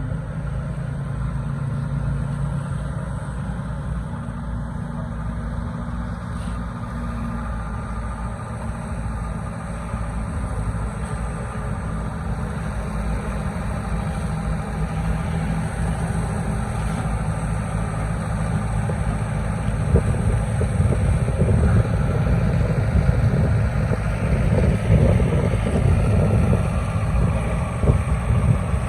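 A machine's engine running steadily at a low, even hum, getting louder about two-thirds of the way through.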